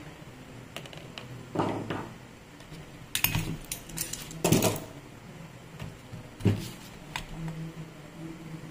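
Metal parts of a dismantled Maktec MT958 angle grinder clinking and knocking as they are handled and set down on the bench. There are a few scattered clatters, the loudest about four and a half seconds in, and a sharp knock a couple of seconds later.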